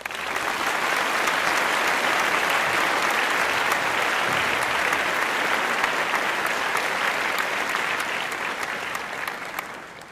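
Crowd applauding steadily, fading out near the end.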